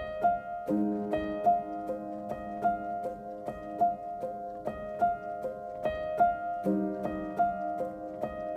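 Background music: short plucked notes in a repeating pattern, about three a second, with a lower held chord joining about a second in and again near the end.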